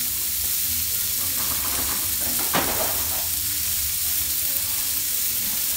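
Sliced onions sizzling steadily in hot olive oil in a stainless steel sauté pan, with a pot of green beans boiling beside it. A single knock sounds about two and a half seconds in.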